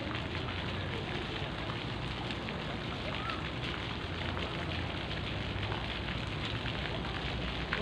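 Steady splashing of water from a fountain jet falling into a swimming pool: a constant hiss with fine crackle, and a small tap near the end.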